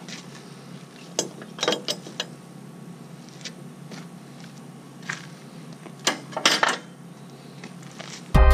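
Scattered light metallic clinks and knocks, several seconds apart, over a low steady hum. Loud electronic music starts abruptly near the end.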